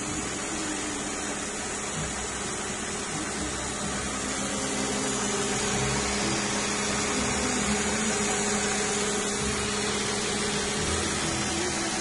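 2005 Nissan Maxima's 3.5-litre V6 idling steadily under the open hood, running without a misfire now that all six ignition coils and spark plugs have been replaced.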